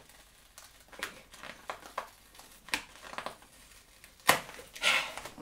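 Accessory packaging being worked open by hand: crinkling and rustling with scattered small clicks, a sharper snap about four seconds in, then a brief rustle.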